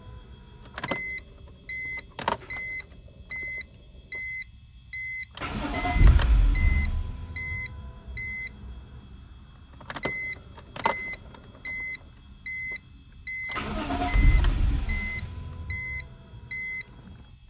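A 2006 BMW E46 M3 being cranked twice without starting, each attempt a couple of seconds of starter and engine noise that dies away. Between the attempts an electronic warning beep repeats about twice a second, with a few sharp clicks.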